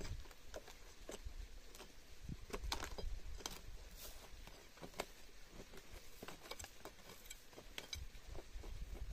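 Scattered small clicks and knocks at irregular intervals, over a low rumble.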